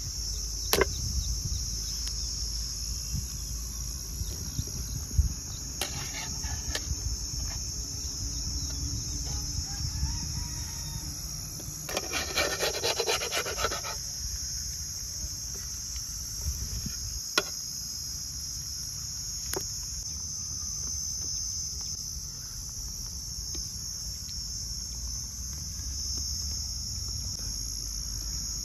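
Crickets chirping steadily in a continuous high-pitched chorus. A few sharp clicks sound through it, and about twelve seconds in there are two seconds of rapid rattling.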